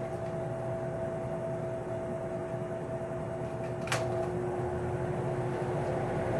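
Vintage Lakewood P-58 box fan motor running a 20-inch LAU propeller: a steady hum of two tones over the rush of moving air. There is one sharp click about four seconds in.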